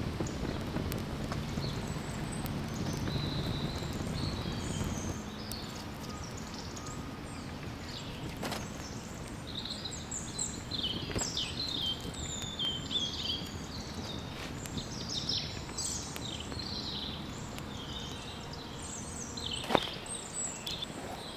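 Small birds chirping in the woods over a wood fire crackling in a small camp stove. A low rush fills the first five seconds or so, and a sharp knock comes near the end.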